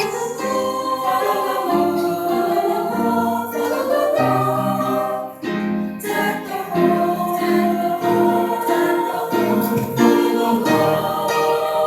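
School chorus singing a Christmas piece with instrumental accompaniment, held notes changing every second or so, with a brief break about halfway through.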